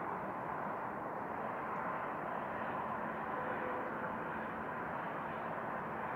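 A steady outdoor drone, an even rushing noise with a faint held tone in it. It is the unexplained 'strange noise' that the recordist thinks could be roadworks.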